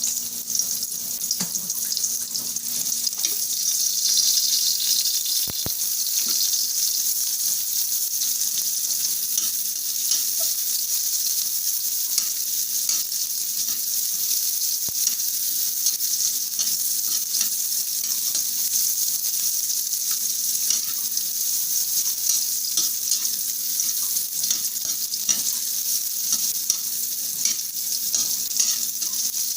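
Chopped ginger, garlic and onion sizzling steadily as they are sautéed in a pan, with light clicks of a utensil stirring them now and then.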